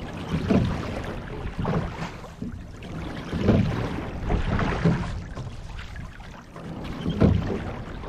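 Water rushing and splashing along the bow of a rowing shell under way, swelling and easing in repeated surges.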